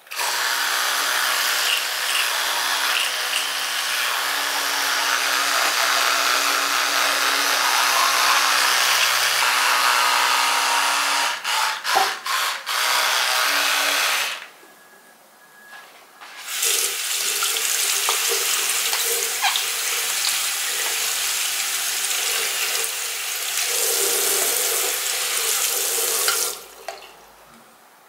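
Electric toothbrush buzzing with a steady hum while brushing teeth for about fourteen seconds, cutting out briefly a few times near the end of that stretch before stopping. After a short pause, a second steady rushing noise runs for about ten seconds.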